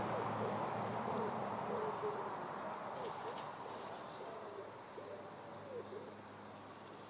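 Soft hooting bird calls: a series of short calls that dip and rise in pitch, growing fainter, over steady outdoor background noise.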